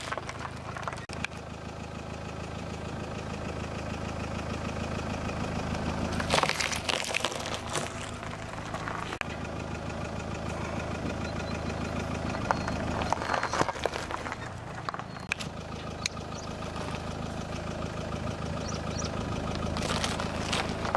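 A car's engine runs slowly at idle while its tyre rolls over and crushes vegetables such as cucumbers and cabbages. There are three spells of crunching, about six, thirteen and twenty seconds in.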